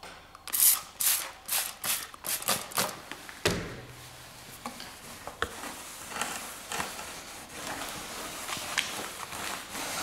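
A cloth wiping over the glossy film covering of a balsa model biplane's wing: a quick run of rubbing strokes, about two a second, then softer, steadier rubbing. A single thud about three and a half seconds in.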